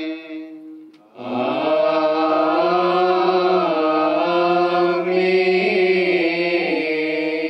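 Malayalam liturgical hymn being chanted: a sung phrase trails off, a brief gap about a second in, then one long unbroken sung phrase whose pitch moves slowly up and down.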